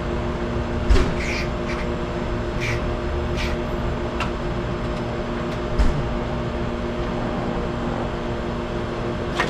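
Short hisses from a WD-40 aerosol can, about six quick sprays of penetrating oil onto the condenser fan's hub to free it from the motor shaft. A couple of dull knocks are heard, over a steady low hum.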